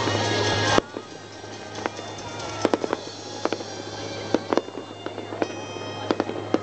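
Fireworks going off: a loud rushing noise that stops suddenly under a second in, then a run of sharp separate bangs and cracks. Music and a steady low hum play underneath.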